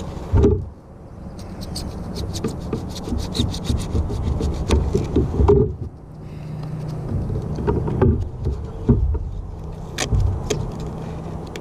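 Handling noises aboard a small boat: knocks and rubbing against the hull and gear, with a quick run of clicks for about four seconds near the start and several single knocks later.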